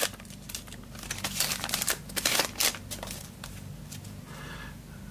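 Trading cards and a pack wrapper being handled: a run of light clicks and crinkles over the first three seconds or so, then quieter.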